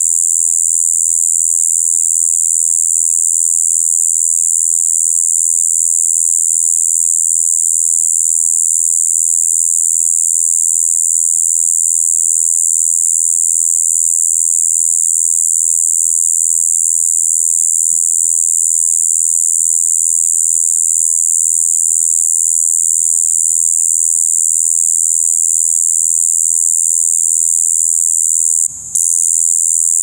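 Male Xestophrys javanicus conehead katydid (シブイロカヤキリ) singing its spring calling song: a loud, steady, monotonous buzz mixing high and low tones, broken once by a brief pause about a second before the end.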